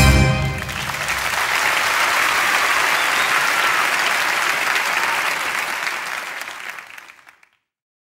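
The song's last chord ends about half a second in, and an audience applauds after it. The applause gradually fades out and is gone about seven seconds in.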